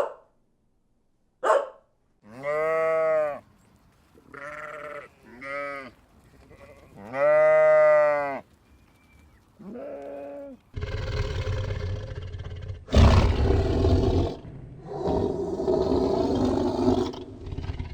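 Bleating: several separate drawn-out bleats, then from about halfway through a run of longer, harsher, rougher calls.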